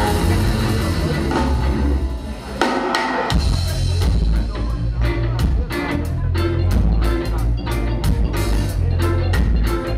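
Live ska band playing an instrumental passage, with drum kit, electric guitar, keyboard and bass. About two and a half seconds in the band briefly thins out, then the drums come back in on a steady beat.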